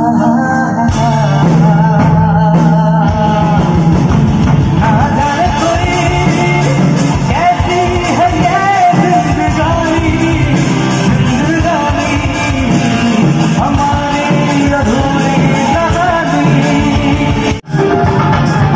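Live stage music played loud through PA speakers: a man singing into a microphone over electric guitar and band backing. The sound drops out for an instant near the end.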